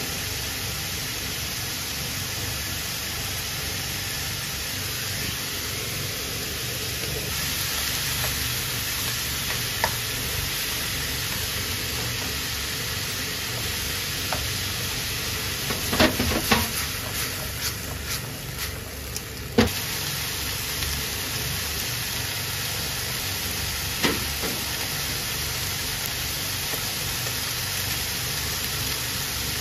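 Carrot, onion, chikuwa and chikuwabu pieces sizzling in oil in a frying pan, a steady hiss. Midway, a cluster of knocks and clicks as a utensil stirs them against the pan, with a few single clicks before and after.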